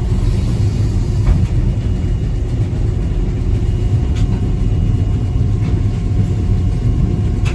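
Steady low rumble of heavy machinery at a sugar beet piler, with a few faint clicks.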